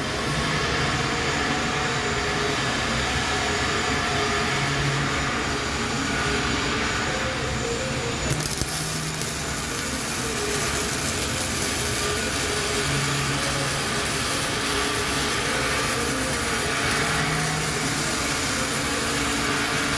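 Electric arc welding: a steady sizzle and crackle from the welding arc, with a change in the high hiss about eight seconds in.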